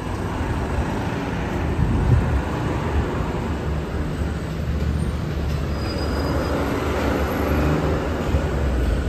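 Busy city street noise led by a continuous low rumble of motor traffic, with a steady low engine hum joining about halfway through.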